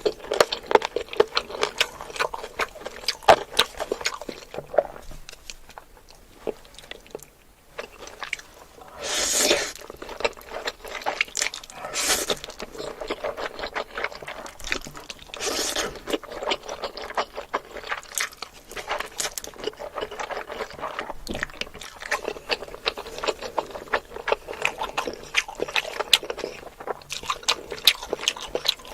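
Close-miked mukbang eating: a person chewing and crunching food with many small wet clicks, and three longer hissing sounds about a third and halfway through.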